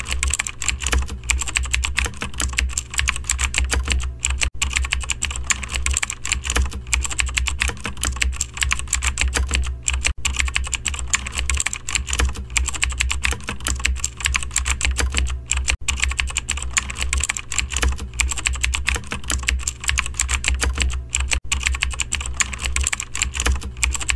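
Fast, continuous computer keyboard typing over a steady low hum. It repeats as a loop, with a brief break about every five and a half seconds.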